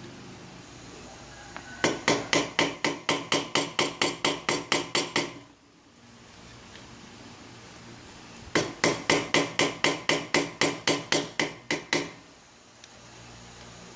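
Hammer tapping a chisel wedged between a keyless drill chuck's press-fit ring and its body, working the ring loose. Two quick runs of about six strikes a second, each lasting three to four seconds.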